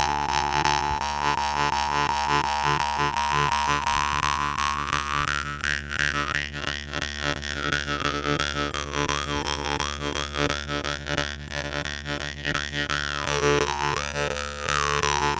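Jaw harp (khomus) played over a single steady drone pitch, plucked in a fast rhythm, its bright overtone sliding up and down in wah-like sweeps as the player's mouth shape changes.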